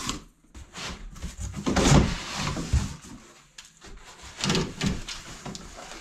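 Cardboard bike box being handled: the flaps pushed open and a knobby mountain-bike wheel pulled up out of the box, with rustling and scraping against the cardboard. The loudest scrape comes about two seconds in, with more handling noise a little before five seconds.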